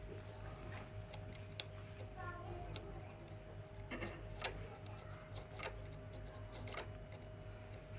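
Metal lice comb being worked through bent aluminium air-conditioner condenser fins to straighten them, giving irregular sharp clicks and ticks as the teeth catch and snap off the fins, over a steady low hum.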